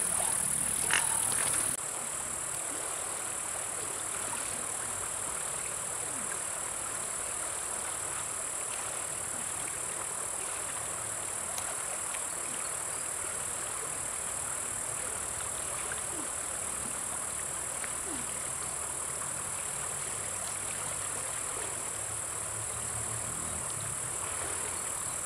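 Shallow river running over rocks, a steady rushing, with a high, steady insect drone over it. The sound drops slightly in level about two seconds in.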